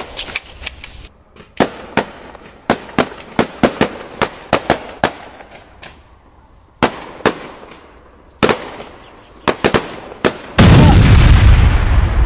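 Gunfire: a long run of single sharp shots, some in quick pairs and clusters, at irregular spacing. About ten and a half seconds in, a loud explosion breaks in with a deep rumble that slowly fades.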